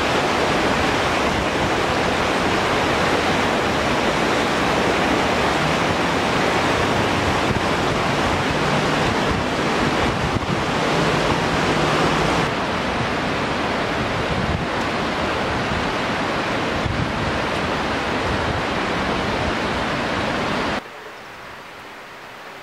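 Steady, loud rushing of river water, which drops away suddenly near the end.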